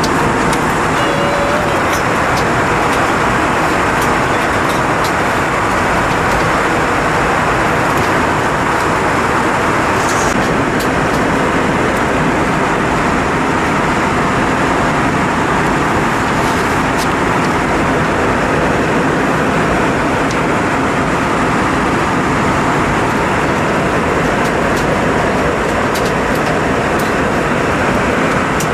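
Steady cabin noise inside an Airbus A320 in flight: an even rush of airflow and engine noise.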